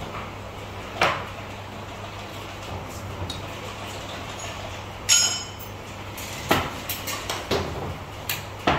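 Metal parts and pliers clinking and knocking against each other and the workbench as a Hinota CG 435 brush-cutter engine is taken apart. A sharp clank comes about a second in and a ringing metallic clink about five seconds in, then several quick knocks near the end, over a steady low hum.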